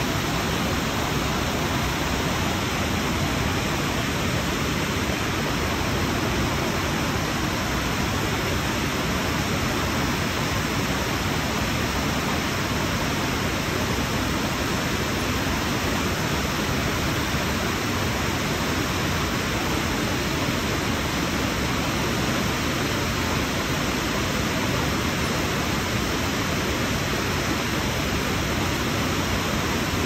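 Waterfall pouring into a rocky creek: a steady, even rush of water with no pauses or changes.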